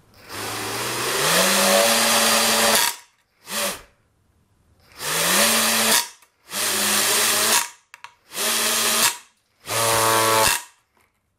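RC brushless motor with a 3D-printed propeller throttled up in repeated bursts: one long run of about three seconds, then a short blip and four more runs of about a second each, the whine rising in pitch as it spools up each time. The spinning propeller is being struck against a wooden board in a crash test, and its blades are being chewed up.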